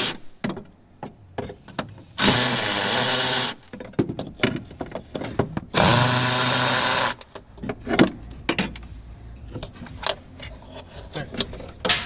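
Cordless drill-driver spinning out the taillight's 10 mm bolts in two runs of about a second and a half, starting about two seconds in and about six seconds in. Light clicks and clinks of handling fall between them.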